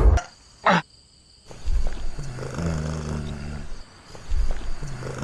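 A loud bang cutting off right at the start, then a low, growling animal roar twice, each about two seconds long.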